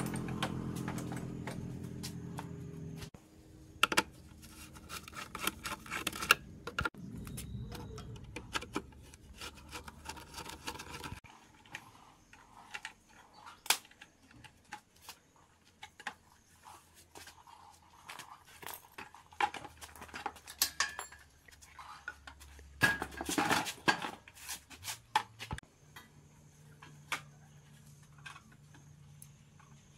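Metal tools and small metal parts clinking and clanking irregularly as they are handled during hand work on a motorbike frame. A steady hum fades and stops about three seconds in.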